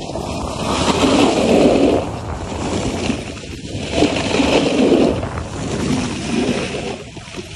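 Snowboard sliding and carving over packed, chopped-up snow: a scraping rush that swells and fades every couple of seconds, with wind buffeting the microphone.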